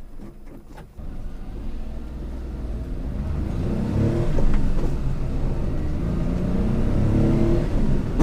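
1998 Daihatsu Hijet kei truck's 660 cc engine, heard from inside the cab, pulling away from a stop about a second in. It revs up, drops at a gear change around the middle, and revs up again, rising in pitch each time.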